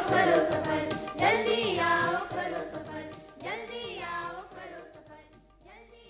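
Song for children with singing and instrumental accompaniment, repeating a short phrase every second or two and fading out.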